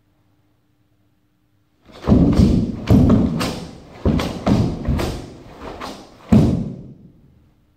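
Sharp snaps and thuds of a karateka performing the Unsu kata: the cotton gi cracking on fast strikes and kicks and bare feet landing on a wooden gym floor. There are about eight hits, starting about two seconds in, each ringing briefly in the large hall.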